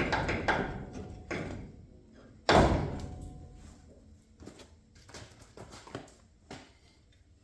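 Heavy metal clunks and knocks as a truck leaf spring is worked loose from its mounts: a run of knocks at first, one loud thud with a brief ring about two and a half seconds in, then lighter scattered knocks.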